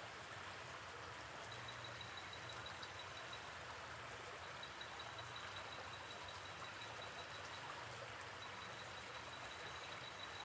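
Faint, steady hiss of background noise, with a faint high-pitched tone coming and going and a weak low hum underneath.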